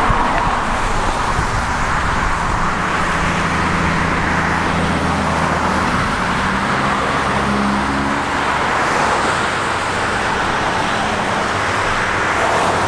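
Steady roadway traffic noise, with a vehicle's low engine hum coming through for several seconds in the middle.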